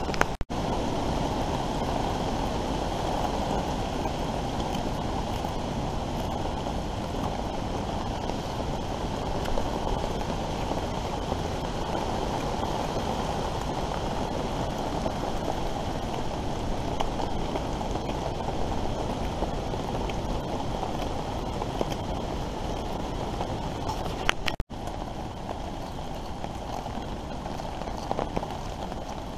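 Steady wind and rain noise outdoors, a constant rushing hiss with wind buffeting the microphone. It drops out for an instant near the start and again about 25 seconds in, then carries on slightly quieter.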